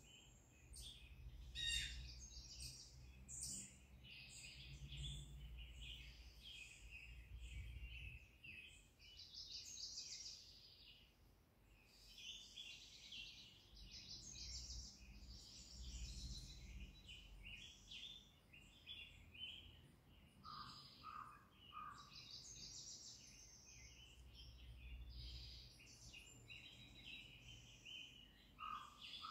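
Faint forest birdsong played through a TV's speakers: a steady chorus of high chirps and trills, with three short lower notes about two-thirds of the way through and a low rumble coming and going beneath.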